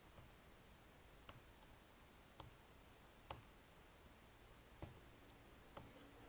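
Computer keyboard keys pressed one at a time while a password is typed: about six separate faint key clicks, roughly a second apart, against near silence.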